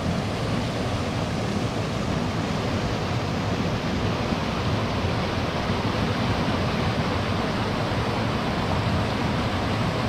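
Steady rush of a small waterfall pouring over rocks into a pool, an even, unbroken noise.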